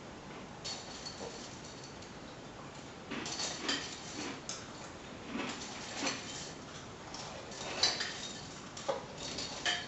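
Scattered light clicks and clinks of small hard objects being handled, coming more often after about three seconds.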